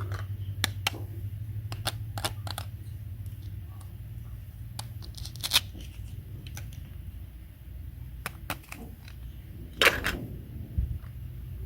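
Light clicks and taps of small hard objects being handled, with a louder knock about ten seconds in, over a low steady hum.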